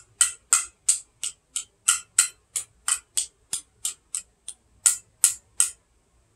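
Rapid, even tapping on the metal lid of a stuck glass jar, about three sharp taps a second, done to loosen the lid; the tapping stops near the end.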